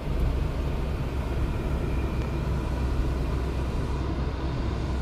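Steady low rumble of a car's engine and road noise, heard from inside the cabin as it drives.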